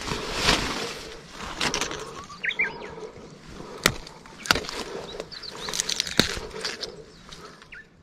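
Rustling and crackling of dry brush and undergrowth as someone moves through it picking fern shoots, with several sharp snaps. A small bird chirps briefly twice.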